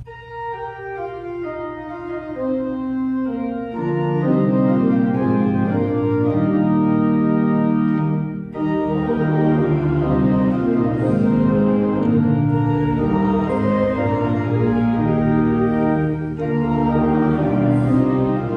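Church organ playing: a descending line of single notes, then full sustained chords with bass entering about four seconds in, with a brief break near the middle.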